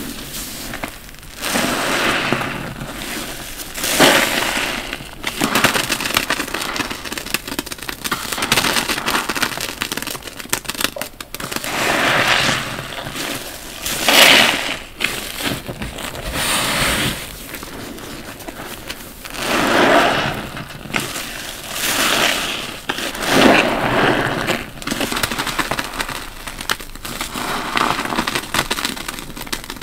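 Soap-lathered bath sponges squeezed over and over, each squeeze a crackling squelch of foam and water. The squeezes come irregularly, about every two to three seconds.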